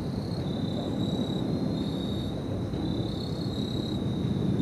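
Outdoor ambience: a steady low rumble under a continuous high-pitched chirring of insects that wavers slightly in pitch.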